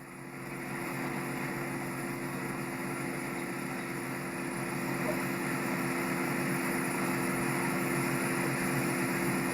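Car cabin noise while driving: a steady engine hum with road noise, swelling in the first second and then holding even.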